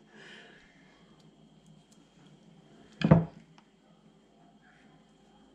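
Quiet room tone with one short, loud thump about three seconds in.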